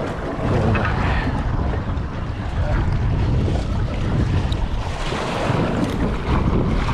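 Wind buffeting the microphone, with sea water washing around a boat. A steady, gusty rush, heaviest in the bass.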